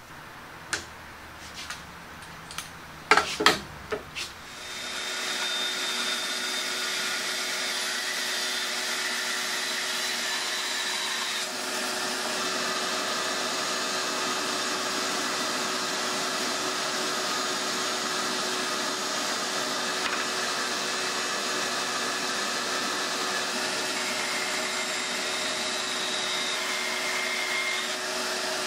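A few knocks and clatters in the first four seconds, the two loudest about three seconds in. About five seconds in, a steady machine hum with a vacuum-like rush starts and holds level: a Rikon 10-3061 band saw running with a vacuum dust-collection hose attached.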